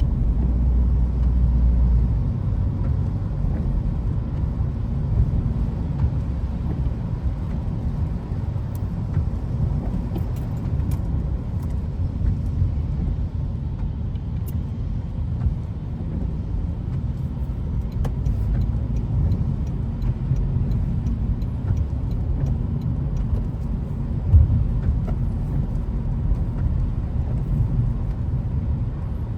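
A car driving, with a steady low road and engine rumble and one brief thump about 24 seconds in.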